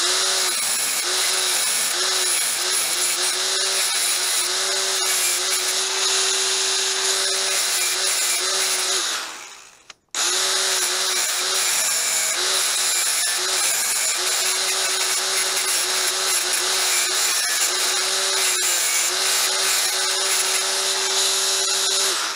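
Angle grinder with a cut-off wheel cutting slots into a small metal bracket clamped in a vise, a steady whine over harsh grinding that dips now and then as the wheel bites. It runs in two long passes, stopping abruptly a little over nine seconds in and starting again about a second later.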